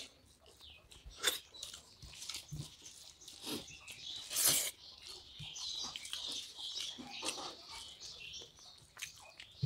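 People eating rice and fish head curry with their hands: chewing, lip smacks and wet squishing of rice being mixed on steel plates, in a run of short irregular clicks, with one louder, longer sound about halfway through.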